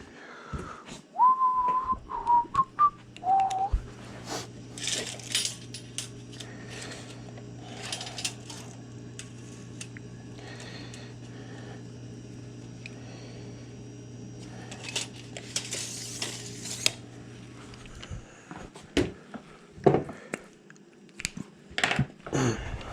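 A person whistles a few short notes near the start. Then come scattered metallic clinks and rattles of metal conduit and hand tools being handled, over a steady low hum that stops about three-quarters of the way through.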